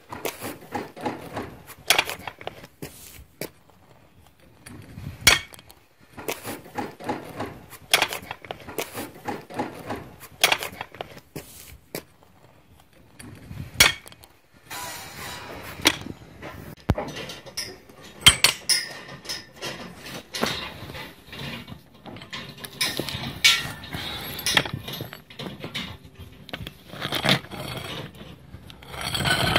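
Large bolt cutters cutting short lengths of steel rod and ribbed rebar: a series of sharp metallic snaps at irregular intervals, one for each cut. Between the snaps come metallic clinks as the jaws are reset and cut pieces fall onto paving stones.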